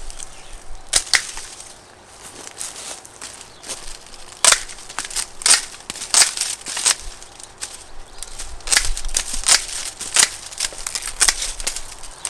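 Dry sunflower stalks and leaves being broken and handled: an irregular series of sharp cracks and snaps with crackling in between.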